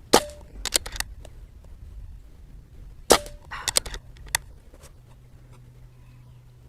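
Two shots from a moderated .22 Barra 1100Z PCP air rifle, about three seconds apart, each a sharp crack followed within a second by a few quieter clicks.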